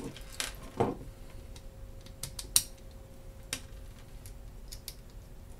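Small machine screws and metal hardware clicking and tapping on a wooden tabletop as they are picked up and handled. It is an irregular scatter of light ticks, the sharpest about two and a half seconds in, over a faint steady hum.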